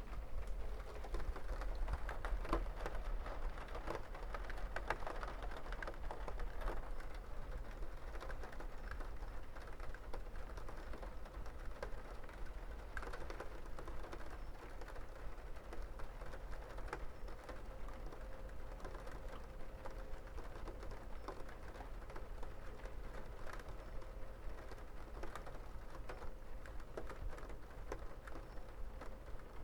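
Steady rain falling, many small drops ticking and pattering densely over a low steady rumble.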